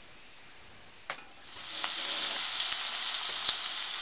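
Ground meat frying in a stainless steel pot, sizzling. After a quiet start and a light knock about a second in, the sizzle swells up at about a second and a half and stays steady, with a few crackles.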